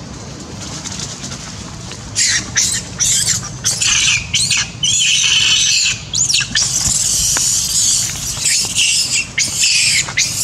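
Young long-tailed macaque screaming in fear. A run of short, high-pitched squeals starts about two seconds in and merges into a longer, near-continuous scream in the second half.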